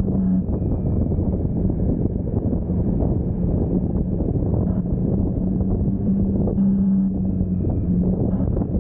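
Wind rushing over the microphone of a motorcycle riding in the rain on a wet road, with the bike's engine humming steadily underneath.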